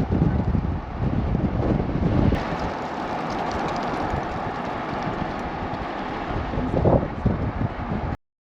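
Wind buffeting the microphone over vehicle noise. About two seconds in, the sound switches abruptly to a steady hiss, then cuts off suddenly to silence near the end.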